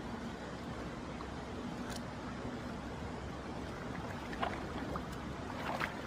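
Steady rush of a valley stream, with a few short sharp taps about two seconds in and twice near the end.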